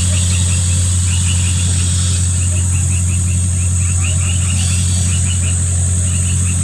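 Steady low engine drone that does not change. A constant high-pitched insect whine and quick, repeated short chirps sound over it.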